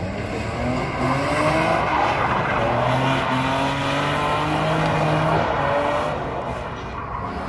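A BMW saloon's engine revving hard, its pitch climbing for several seconds as the car drifts, over the squeal and scrub of the rear tyres sliding on asphalt. The engine note drops back about a second before the end.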